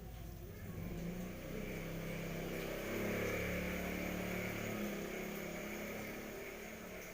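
A motor vehicle going past, its engine hum swelling over a few seconds and then fading away.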